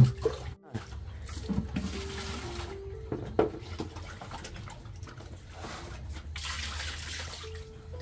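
Liquid pig slop poured from a plastic bucket into a concrete trough, splashing in two long pours, about a second in and again near the end. A sharp knock sounds at the very start.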